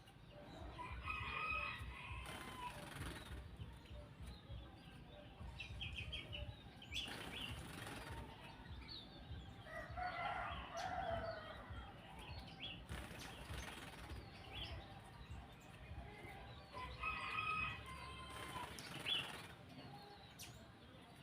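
A cucak jenggot (grey-cheeked bulbul) having a bath, with several short bursts of wing fluttering and splashing among repeated short bird calls.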